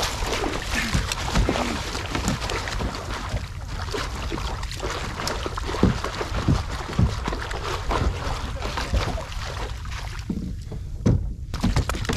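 A hooked fish thrashing and splashing at the water's surface right beside a kayak, with irregular sharp splashes over a steady low rumble.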